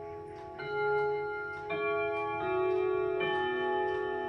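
Odo 36/10 wall clock chiming a melody on its ten chime rods: hammers strike one note after another, about one a second, each note ringing on into the next, over the clock's steady ticking.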